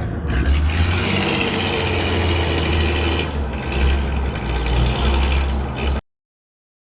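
Vehicle engine running steadily with a heavy low rumble, then cutting off abruptly about six seconds in.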